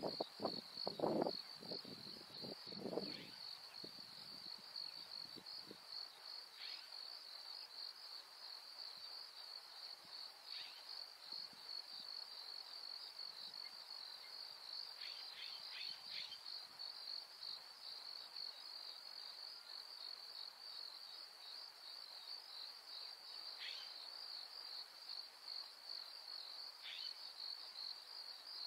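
Steady high-pitched insect chorus trilling without pause, with a few short faint bird chirps now and then. A few soft knocks and rustles in the first few seconds.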